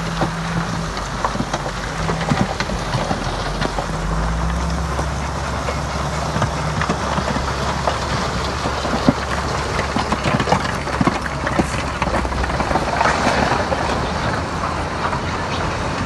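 Heavy earthmoving machinery at work: a diesel engine running steadily while rock and stone clank and crunch with many sharp knocks. A deeper engine note comes in about four seconds in.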